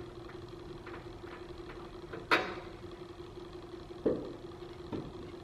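Small handling noises: a few faint ticks, then one sharp click about two seconds in and two softer knocks near the end, over a faint steady hum.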